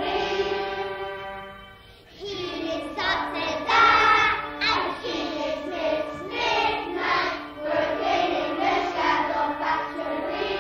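A group of children singing a melody, with held notes; the singing fades and breaks off briefly about two seconds in, then comes back in.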